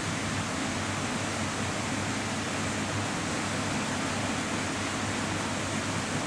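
Steady, even hiss with a low hum underneath: constant room tone, with no sound from the lizard itself.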